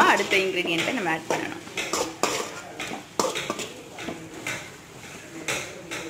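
A spatula scraping and knocking against an aluminium kadai as onions in spice masala are stirred, in irregular strokes. The strokes are loudest in about the first second and a half, then lighter taps follow.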